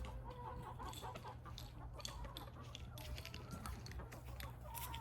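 Hens clucking softly in short, scattered calls, with a few light clicks and rustles.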